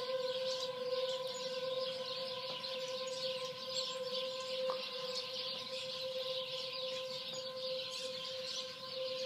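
Outdoor tornado warning sirens sounding the steady alert for a tornado warning, one unchanging pitch held throughout, with birds chirping over it.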